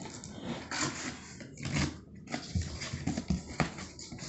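Packing tape being ripped off a cardboard shipping box and the cardboard flaps pulled open. It comes as a series of short scraping, tearing rustles with a few knocks.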